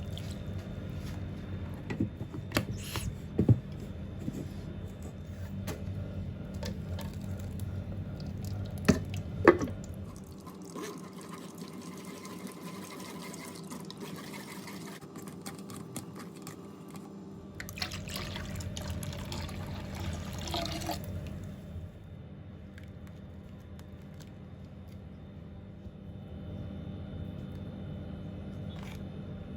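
Liquid being poured and dripping, with a few sharp knocks of utensils about three seconds in and again near the ten-second mark.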